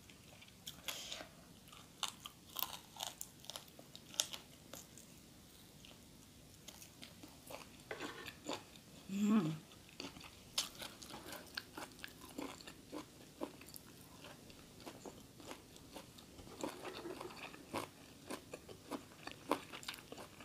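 Close-up chewing and crunching of food, with many small crisp crunches and mouth clicks. A brief low hum about nine seconds in.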